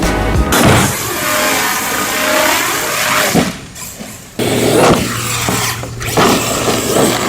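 Traxxas X-Maxx RC car driving: its brushless electric motor whines and slides down and back up in pitch, over a steady rush of tyre and drivetrain noise. The sound drops away briefly around four seconds in, then picks up loudly again.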